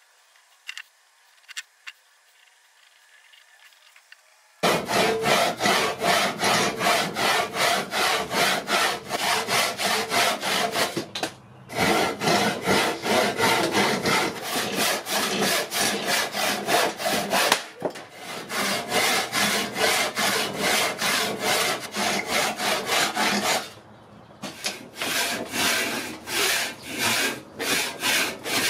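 Handsaw cutting through a block of weathered fence-post wood with steady back-and-forth strokes, about three a second. The sawing starts about four and a half seconds in, pauses briefly a few times, and the strokes grow lighter near the end.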